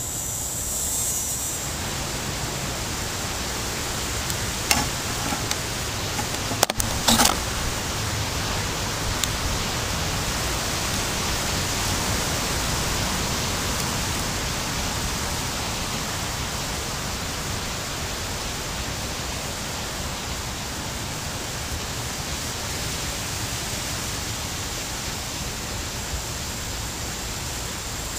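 Steady rushing noise that swells slightly and then eases, with a few short clicks about five and seven seconds in.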